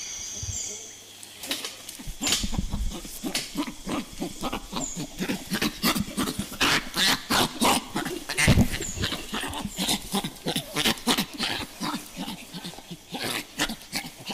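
Young chimpanzees laughing as they are tickled: a rapid series of short, breathy gasps, starting about a second and a half in.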